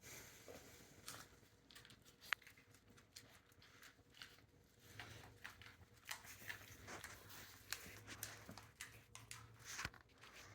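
Faint rustling and scattered soft clicks of Rhodesian Ridgeback puppies moving about in their box, with one sharp click about two seconds in.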